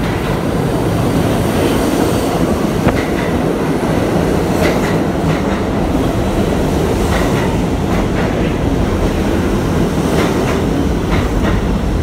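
R68A subway train entering the station past the platform: a loud, steady rumble of steel wheels on rail with clicks over the rail joints and several brief high squeals.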